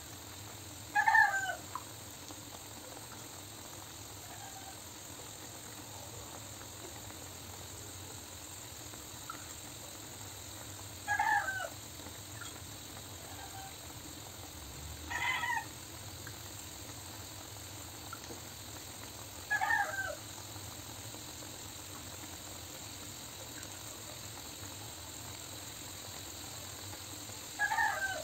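An animal calling five times, each a short pitched call with a wavering pitch, several seconds apart, over a steady low hiss.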